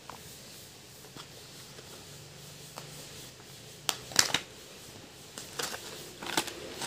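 A Pringles can being handled: short sharp clicks and rattles from the can and its plastic lid, the loudest about four seconds in, with a few more near the end.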